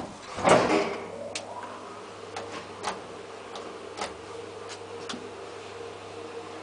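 Elevator door shutting with a heavy thump about half a second in, then a 1980 KONE traction elevator running with a steady hum and irregular sharp clicks roughly every half second.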